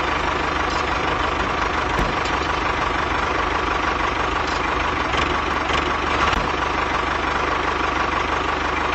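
An engine running steadily at an even speed, with a fine, regular low firing rhythm and a steady whine over it.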